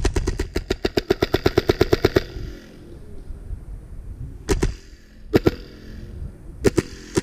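Airsoft rifle firing a rapid full-auto burst of about two seconds, an even rattle of shots at roughly a dozen a second, followed later by a few single sharp cracks, one of them a quick pair.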